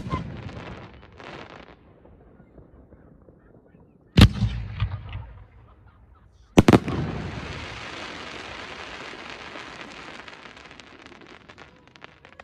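Aerial firework shells bursting: a previous burst's echo dies away in the first second or two, then two sharp bangs come about four and six and a half seconds in. The second bang is followed by several seconds of steady crackle from its falling stars.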